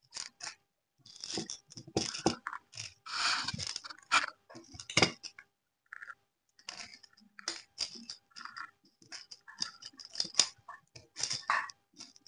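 Small coloured beads clicking and rattling against a plate as they are picked out and sorted by hand, in quick irregular clusters of taps and scrapes.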